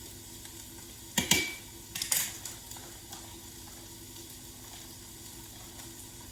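Two metallic clinks about a second apart, a utensil knocking against the Instant Pot's stainless steel inner pot, the first with a short ring. Under them a faint steady sizzle of sausage and onion browning on the sauté setting.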